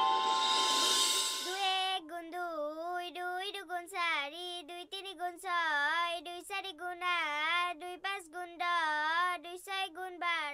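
Children chanting a multiplication table in unison, in a rhythmic sing-song, starting about two seconds in. Before it, a short swell of music and hiss fades out.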